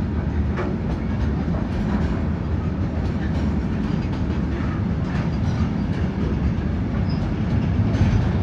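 Freight train wagons rolling past close by: a steady low rumble of steel wheels on the rails, with scattered faint clicks of wheels going over rail joints. The sound grows slightly louder near the end.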